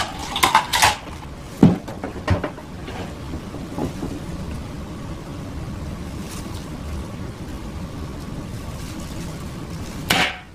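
Several sharp clicks and knocks of a .22 Gamo air rifle being handled and reloaded in the first couple of seconds, over steady background noise. One short, sharp report near the end as the air rifle fires.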